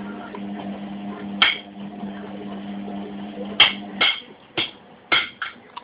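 Washing machine motor humming steadily, then cutting off about four seconds in. Several sharp clinks of hard objects knocking come with it: one about a second and a half in, then a quick run of five or six.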